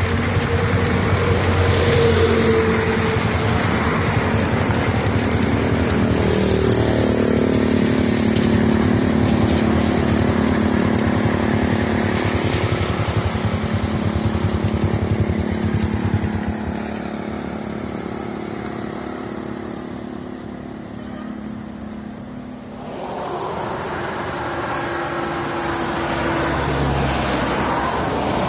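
Motor vehicles passing on the adjacent highway: a steady engine hum that fades after about sixteen seconds and stops around twenty-three seconds in, over continuous road noise.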